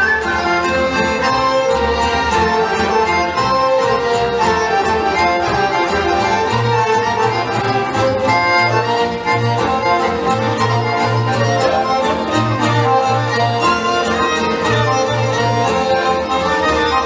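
Serbian folk dance music from Mačva played on accordion and violin, a lively melody over repeated short bass notes.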